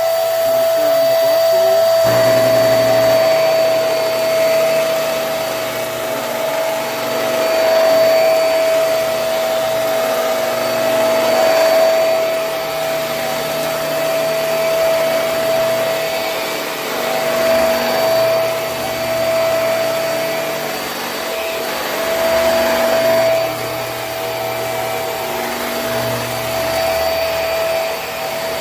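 Hoover High Performance Swivel upright vacuum running on carpet with a steady high motor whine. Its loudness rises and falls every few seconds as it works over the carpet, and a lower hum joins about two seconds in.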